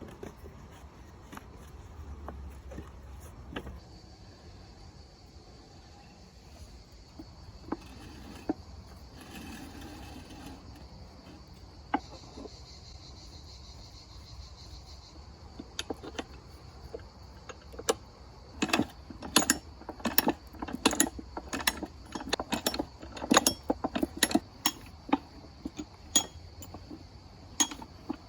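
Light handling knocks, then from about halfway through a quick, irregular run of sharp metallic clinks and knocks, like small metal parts being handled and fitted together.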